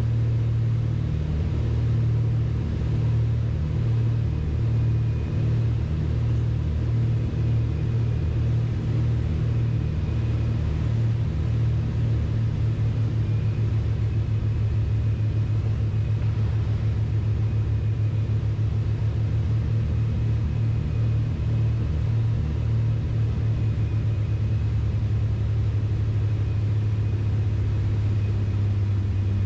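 Twin piston engines and propellers of a Beechcraft Baron B55 droning steadily inside the cockpit on final approach to landing. The low drone carries a rhythmic throb.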